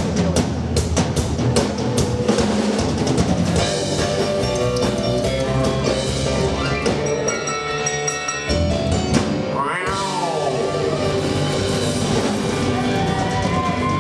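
A live rockabilly band with drums, electric guitar, upright bass and keyboard plays the closing bars of a song. Fast drum strokes open it, then a long held chord follows, with sliding notes about ten seconds in and again near the end.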